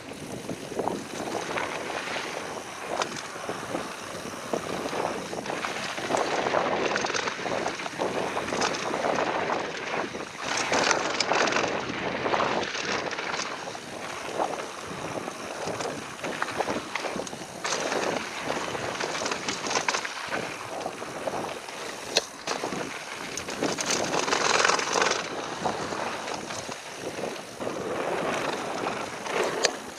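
Ghost FR AMR X6 full-suspension mountain bike riding fast down a downhill trail, recorded on a GoPro: tyre noise on the dirt surface and wind on the microphone, surging louder and quieter, with scattered sharp knocks and rattles as the bike hits bumps.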